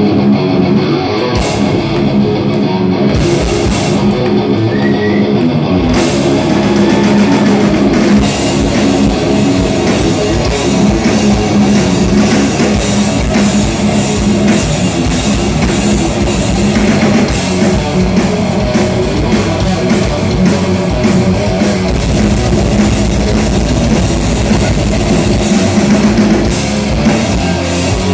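Heavy metal band playing live on electric guitars and drum kit, an instrumental passage with no singing. The drums and cymbals come in fully about six seconds in.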